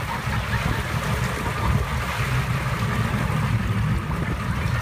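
Outboard-powered motorboat running at speed while towing, its engine drone mixed with wind rushing over the microphone and the churn of water in the wake.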